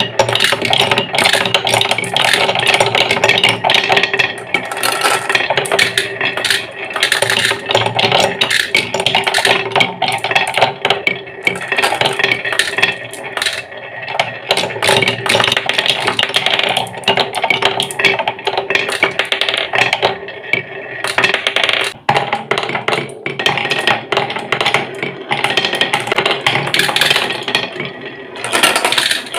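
Many marbles rolling and clattering down a wooden marble run, a dense stream of rapid clicks and knocks against wooden blocks and rails.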